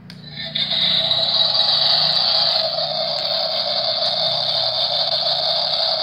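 Toy remote-control excavator running with a steady, loud whirring noise that starts about half a second in.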